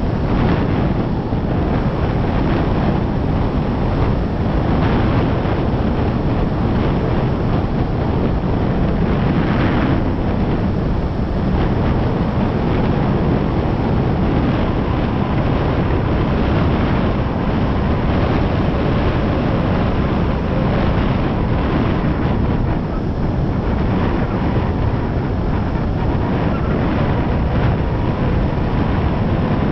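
Wind buffeting the microphone and water rushing past a kite foil under way, a loud steady rush. A faint steady whine comes in over the second half.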